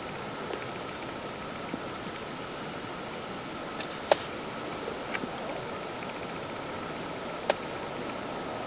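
Footsteps through dry grass over a steady hiss, with two sharp clicks, the louder one about four seconds in and another near the end.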